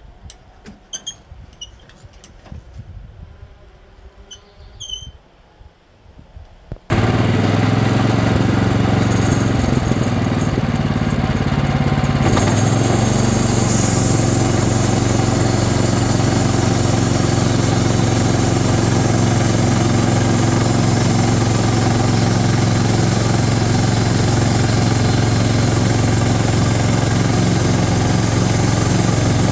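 A lull with a few short high chirps, then about seven seconds in the sawmill's engine comes in abruptly at full level and runs steadily and loudly. Its tone shifts slightly about twelve seconds in.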